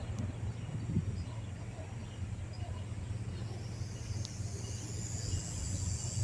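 Low, steady rumble of a diesel freight locomotive, growing louder near the end as a high hiss rises in with it: the train drawing closer.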